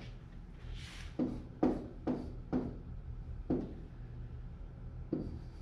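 Pen tapping and scratching against an interactive whiteboard while writing: a string of about six short, sharp taps and a soft scrape, over a steady low hum.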